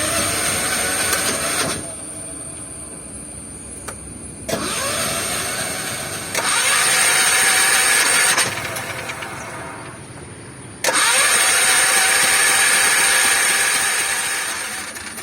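Diesel auto rickshaw engine being cranked on its electric starter in four separate bursts, each beginning with a short rising whine. The engine is slow to catch, the hard start that the owner puts down to poor compression.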